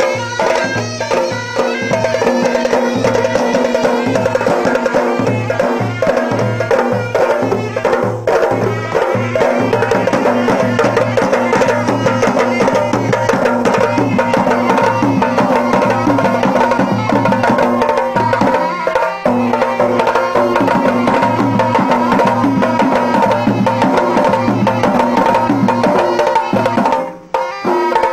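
Traditional Gilgit-Baltistan folk dance music: a sustained melody over a steady drum beat, dropping out briefly about a second before the end.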